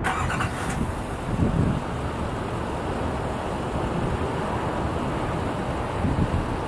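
Steady jet noise from a Boeing 777-300ER's GE90 turbofans as the airliner passes low on landing approach, with wind buffeting the microphone.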